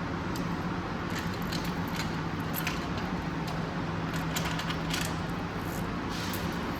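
Small metallic clicks and clinks of tools and engine parts being handled, over a steady background hum.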